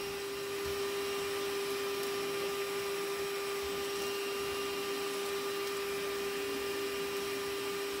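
Cordless vacuum's motor running steadily at medium power: a constant whine over the rush of air.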